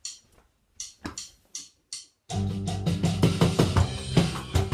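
A count-in of about five sharp clicks, then a couple of seconds in a rock backing track with bass and guitar starts, with drums played along on an electronic drum kit.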